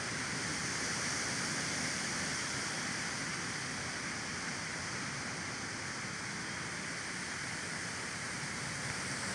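Steady rush of flowing stream water, an even hiss with no breaks or distinct splashes.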